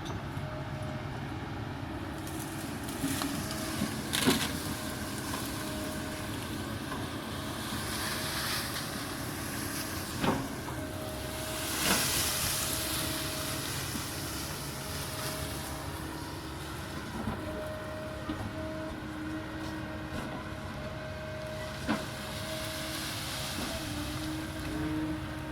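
Kobelco excavator running steadily under work, with a hydraulic whine that comes and goes and a few sharp knocks.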